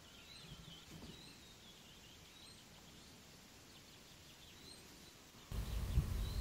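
Faint outdoor ambience with a bird's short high chirps repeating about once a second. About five seconds in, a louder low rumble of outdoor noise sets in, and the chirps carry on over it.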